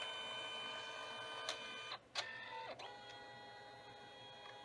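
Canon Selphy CP1200 dye-sublimation photo printer running mid-print, its feed motor whining with several steady tones as it moves the paper between colour passes. About two seconds in the motor stops briefly with a couple of clicks, then resumes at a different, slightly quieter pitch.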